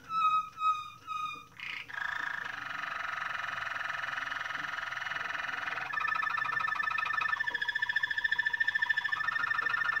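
Waterslager (Malinois) canary singing. It starts with three repeated whistled notes and a quick upward slide, then goes into a long rolling trill. From about six seconds in it switches to a fast, evenly pulsed run on one steady pitch.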